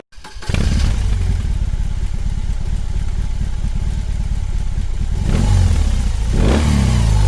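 BMW R 18's 1802 cc air/oil-cooled boxer twin idling with a low, even pulse, revved up briefly about five seconds in and again near the end.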